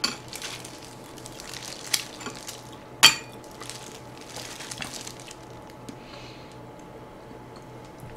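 A metal spoon clinking and scraping against a small bowl a few times, the loudest clink about three seconds in, with soft rustling as food is worked in the bowl with a plastic-gloved hand.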